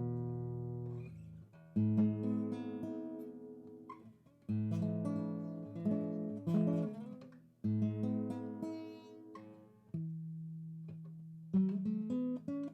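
Background music: acoustic guitar strumming chords, each left to ring and fade before the next, with a single held note near the end.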